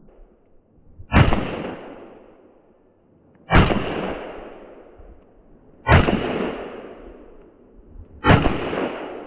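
Taurus 92 9mm pistol fired four times, slow and evenly spaced about two and a half seconds apart, each shot followed by a long echo that dies away.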